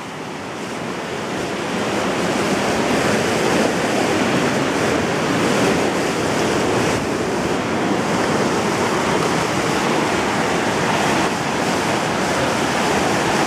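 Whitewater river rapids rushing, a steady noise of moving water that swells over the first two or three seconds and then holds.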